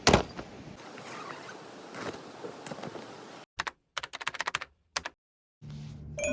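Sharp clicks and taps, one loud click at the start and a quick run of them about four seconds in, broken by stretches of dead silence.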